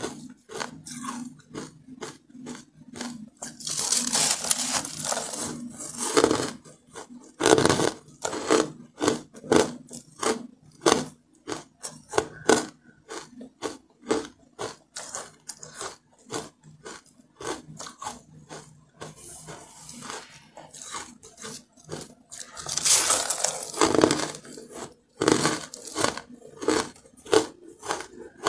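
Close-miked eating of fluffy carbonated ice: a rapid run of crisp crunches as it is bitten and chewed, with louder, denser crunching about four seconds in and again near twenty-three seconds.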